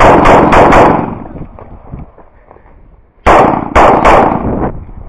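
Semi-automatic pistol firing in rapid strings: about four quick shots in the first second, then two more shots about half a second apart near 3.3 s.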